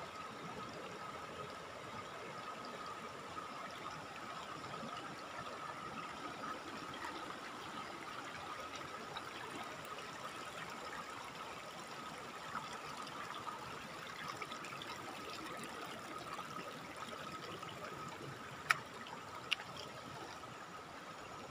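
River water running steadily over rocks and small rapids, with two sharp clicks near the end.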